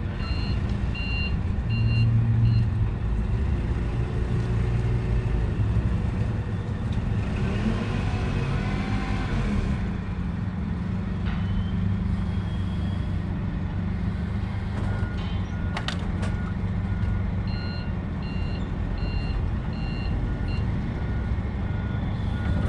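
A vehicle engine runs steadily under a backup alarm. The alarm beeps about twice a second in a short run at the start and again about eighteen seconds in. A lower, slower beeping repeats from about fifteen seconds on.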